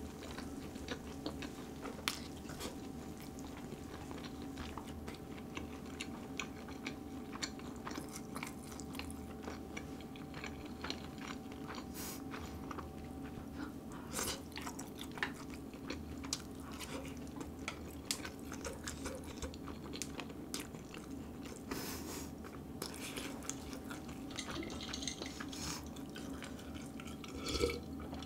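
Close-miked chewing of marinated grilled duck ribs, with many small wet mouth clicks and smacks over a steady low hum. Near the end come louder sounds of drinking water from a glass.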